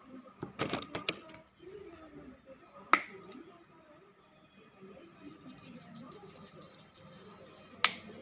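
Sharp clicks and taps from plastic seasoning shaker bottles being handled and shaken over a plastic food container: a quick cluster in the first second, one loud click about three seconds in, and another near the end.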